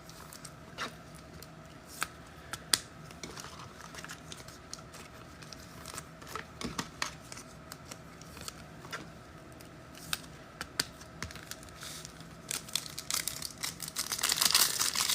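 Foil wrapper of a football trading-card pack crinkling and tearing, with scattered light clicks through the first part. The crinkling grows denser and louder near the end.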